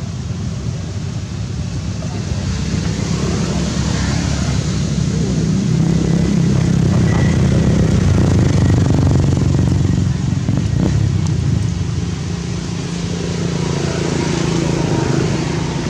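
Motor-vehicle engine rumble from passing traffic, swelling to its loudest around the middle and easing off toward the end.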